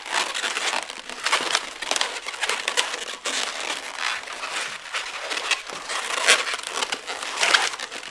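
Latex twisting balloons rubbing and squeaking against each other and against the hands as they are twisted together, an irregular run of scratchy rubbing sounds.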